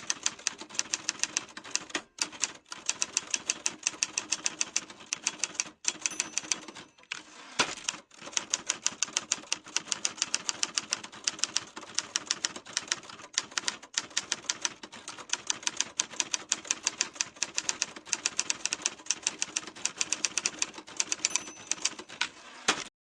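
Typewriter keys being struck in quick succession, several clacks a second with a few short breaks, one stroke louder than the rest about eight seconds in. The typing stops abruptly near the end.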